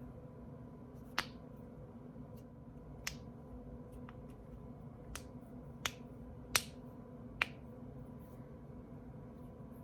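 Human joints cracking: about seven sharp, separate pops at irregular intervals, the loudest about two-thirds of the way through, over a faint steady hum.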